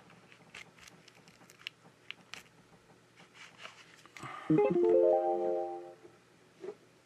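Faint small clicks and taps, then about four seconds in a short musical chime: several piano-like notes entering one after another in a rising run and ringing together for about a second and a half before fading.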